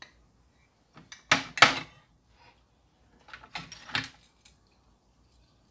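Kitchenware being handled on a plastic tray while dry yeast is tipped into a plastic mixing bowl: two sharp clattering knocks about a second and a half in, then a cluster of lighter knocks and rattles around four seconds in.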